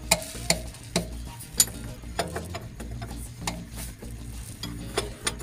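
Several sharp metallic clicks and knocks at irregular intervals as the engine oil filter of a 65-ton crawler crane is worked loose with tools and hands during an oil service.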